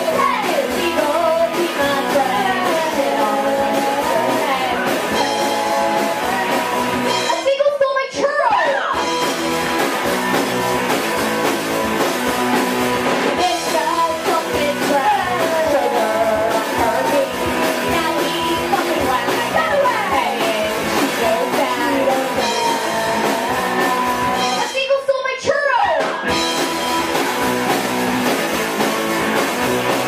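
Indie rock band playing live: electric guitars, electric bass and a drum kit, with women singing into microphones over the band.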